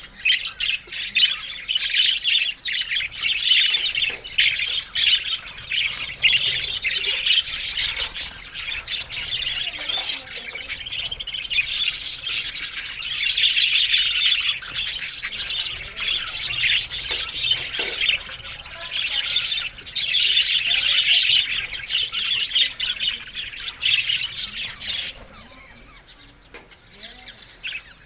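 Budgerigars chattering, chirping and squawking almost without a break. The chatter drops away about three seconds before the end.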